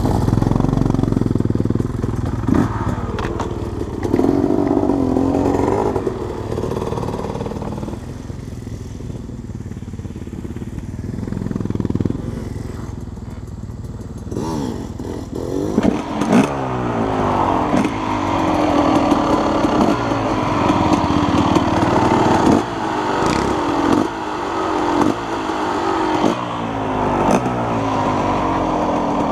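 KTM 250SX two-stroke dirt bike engine running at idle, then from about halfway through blipped repeatedly, roughly once a second, the revs falling back after each blip.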